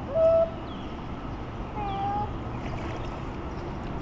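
Two short, high-pitched cries, the louder one right at the start and a fainter one about two seconds in, over the steady noise of a paddled kayak moving through the water.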